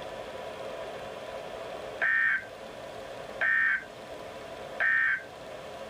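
Weather radio receiver hiss with a faint hum, then, about two seconds in, three short electronic data bursts about a second and a half apart. These are the EAS/SAME digital end-of-message code that closes the required weekly test.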